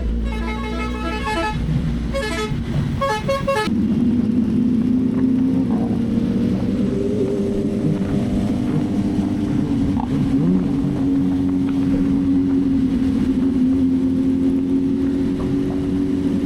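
Background music for the first few seconds, then a BMW S1000RR sportbike's inline-four engine running steadily at a constant speed, a sustained engine tone that wavers slightly.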